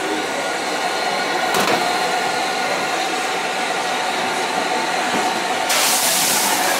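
Gas wok burner and extractor hood running with a steady rushing noise, and a single clank about a second and a half in. Near the end a louder hiss starts as food hits the hot wok and sizzles.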